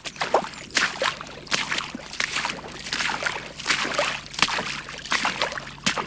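Sound-effects recording of a man wading through floodwater: water sloshes and splashes with each stride, about three strides every two seconds.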